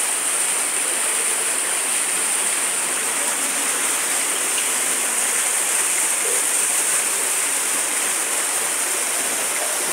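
Muddy floodwater rushing down a paved street in a steady torrent, a constant wash of water noise.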